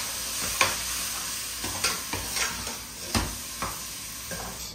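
Metal ladle stirring soaked basmati rice into sizzling tomato masala in a pressure cooker, with a steady sizzle and several irregular scrapes of the ladle against the pot.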